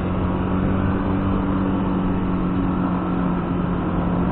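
Motorcycle single-cylinder four-stroke engine running at a steady cruising speed. It gives an even drone with a constant pitch over a rush of road and wind noise.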